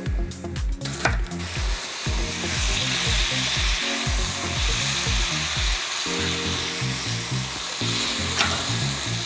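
Sliced steak frying in a hot pan for a stir fry, a loud steady sizzle that starts about a second and a half in and is stirred as it cooks.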